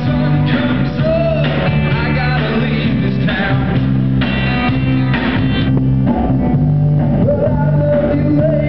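Live rock band playing: electric guitars over a steady, sustained bass line.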